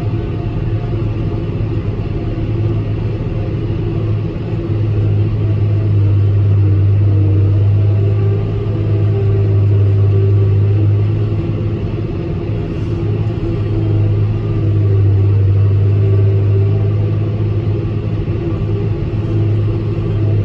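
John Deere 6150R tractor and Kongskilde 1260 trailed forage harvester working at full load while chopping grass, heard from inside the tractor cab. A steady low drone swells and eases slightly as the load changes.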